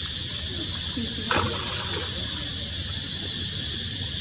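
Forest ambience: a steady high insect drone, with a few faint short squeals from a macaque in the first second and a half, the sharpest about a second in.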